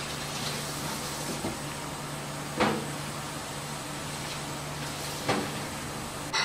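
Steady low hum and hiss of room tone, broken by two short light clinks, one a little before halfway and one near the end, as a metal spoon touches a porcelain cup while scooping pudding.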